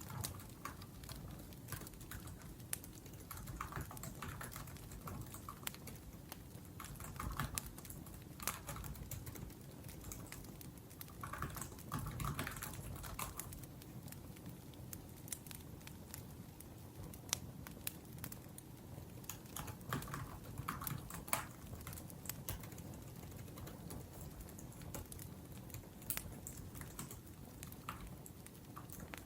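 Typing on a laptop keyboard in short bursts of quick key clicks with pauses between, over the soft crackle and snap of burning firewood.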